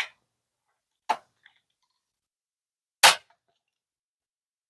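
Hand pop rivet gun being squeezed to set a rivet: two sharp clicks from the handles, then a loud sharp snap about three seconds in as the rivet's mandrel breaks off and the rivet sets.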